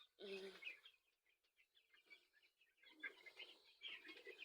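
Faint, scattered peeping and soft calls of two-week-old broiler chicks, a few near the start and more in the last second or so.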